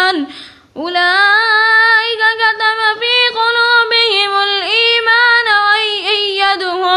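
A single high voice chanting Quran recitation in a slow, melodic style: after a brief breath near the start, one long phrase of held, ornamented notes.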